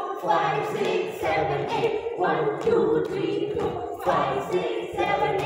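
A song with a chorus of voices singing over music with a steady beat.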